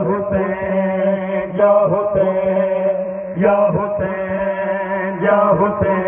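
A large crowd of mourners chanting together, a Shia mourning chant with long held notes and swelling, gliding phrases.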